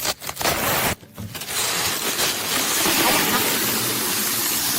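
A few short bursts of hissing noise, then a steady loud hiss from about a second in.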